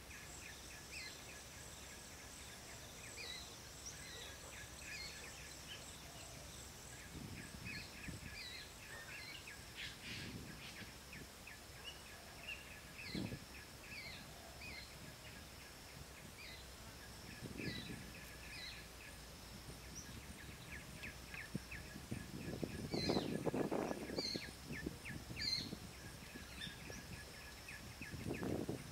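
Birds chirping in short repeated calls over a faint steady high tone, with occasional rustles and knocks of bamboo being handled; the loudest is a longer rustle about 23 seconds in.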